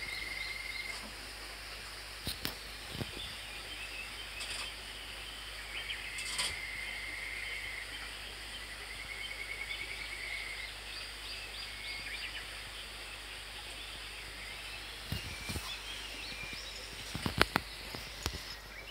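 Outdoor garden ambience with birds chirping and giving repeated fast trills, a few times over. A few short sharp clicks and knocks come through, the loudest near the end.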